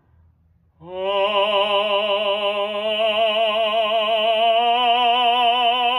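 A classically trained voice in a singing lesson holds one long note with steady vibrato, starting about a second in, as a legato vocal exercise; the pitch edges slightly upward.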